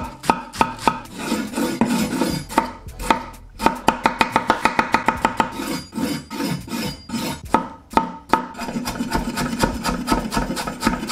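A chef's knife chopping vegetables on a wooden cutting board: a long series of quick knocks as the blade strikes the wood, coming in runs that are fastest a few seconds in.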